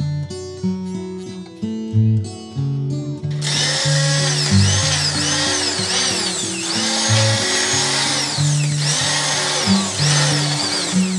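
An immersion (stick) blender runs in a pot of cooked butternut squash soup, pureeing it smooth. Its motor whine starts about three seconds in, rises and falls over and over with a few brief dips, and stops near the end. Acoustic guitar music plays throughout.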